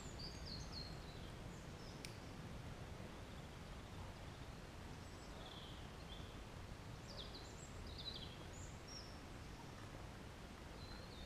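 Forest ambience: songbirds giving short high chirps on and off over a faint, steady low rumble of wind, with a single faint click about two seconds in.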